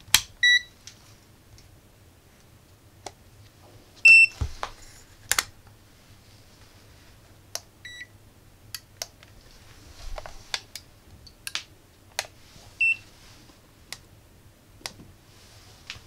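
Handheld digital multimeters being switched on one after another: about four short electronic beeps at two different pitches, the loudest about four seconds in, among the clicks of rotary range dials and buttons.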